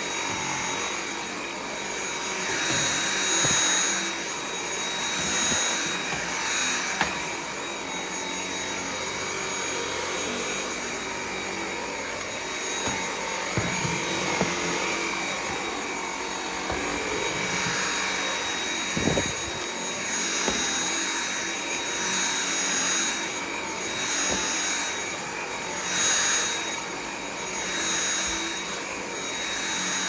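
Cordless stick vacuum running on carpet: a steady high motor whine, with the suction noise swelling and fading as the motorized brush head is pushed and pulled across the pile. A few light knocks come around the middle.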